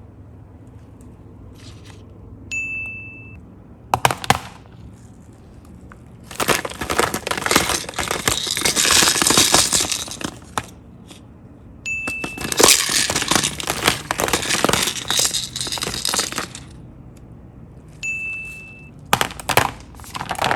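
Slime being squeezed and mixed, giving off dense crackling and crunching clicks in two long spells. Three short high beeps sound between them.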